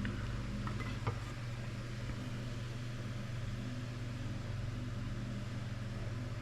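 A steady low mechanical hum, with a faint click about a second in.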